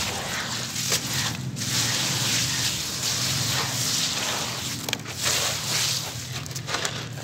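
Water pouring onto a heap of crumbled, wet cement chunks: a steady splashing rush with a few sharp crackles.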